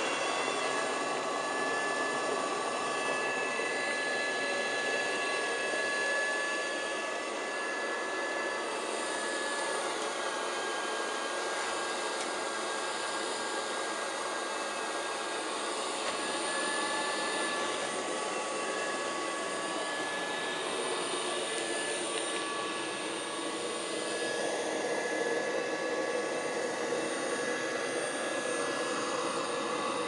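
Miele Scout RX3 robot vacuum cleaner running on carpet: a steady motor whine over a hiss, its pitch and level shifting a little as it moves.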